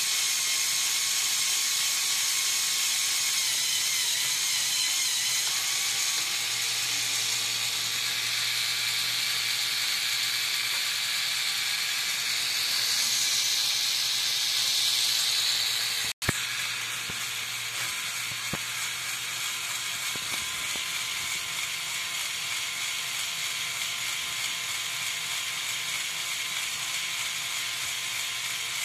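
Small electric motor and plastic Lego Technic gear train running, a steady whir with a gear-clatter, as the crane truck's modified, lower-ratio crane gearing is driven. It breaks off abruptly just past halfway and then carries on a little quieter.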